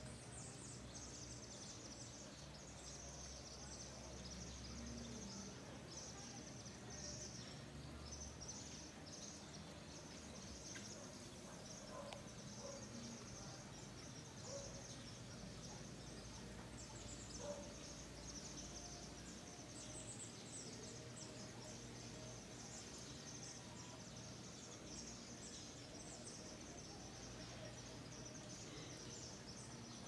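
Faint, steady high-pitched insect chorus with a fine pulsing texture, running on without a break.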